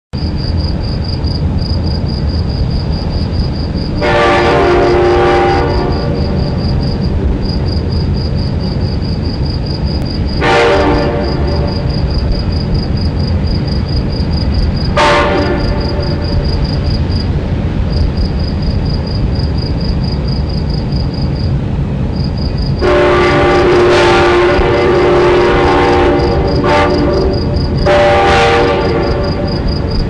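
Train horn blasting up close, several tones sounding together: a long blast about four seconds in, two short blasts around ten and fifteen seconds, then a long blast followed by two more near the end. Underneath are a steady low rumble and crickets chirping in a fast, even pulse.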